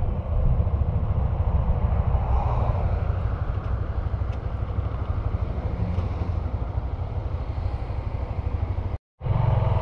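Steady low rumble of a vehicle driving, engine and road noise, with no distinct events; it drops out for a moment near the end.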